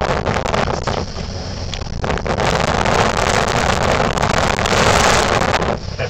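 Wind rushing over the microphone at a cable car gondola's window: a steady noise that grows louder about two seconds in and falls back just before the end.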